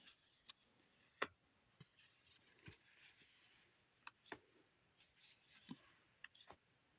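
Faint rustling of One Piece trading cards being flipped through one at a time by hand, with soft irregular clicks as each card is slid off the stack.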